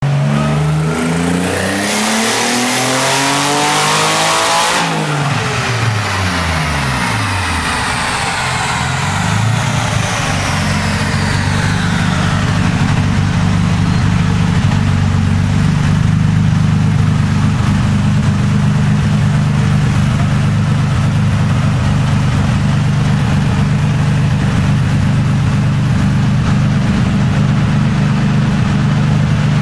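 Twin-turbocharged Nissan 350Z's 3.5-litre V6 making a full-throttle pull on a chassis dyno: the engine note climbs steeply for about five seconds with a loud rush near the top, then cuts off sharply when the throttle is lifted. The revs fall away over a few seconds with a fading high whine as the turbos and rollers spin down, and the engine then runs steadily at low revs.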